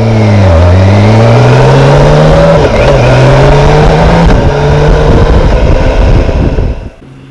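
BMW K1600B's inline six-cylinder engine accelerating from a stop through the gears. The pitch climbs and drops back at each of about three upshifts, with heavy wind rush over the microphone. The sound cuts off abruptly near the end.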